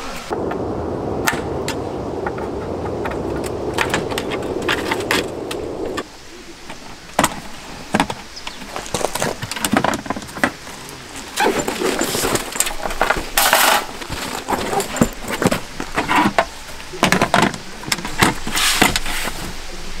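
Camping gear being handled as a folding sub table is opened out on a crate stand: a scattered run of sharp clicks, knocks and light metallic rattles. For the first several seconds a steady rushing noise lies underneath, and it cuts off suddenly.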